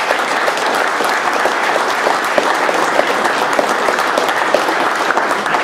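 Audience applauding in a hall, steady dense clapping that dies away near the end.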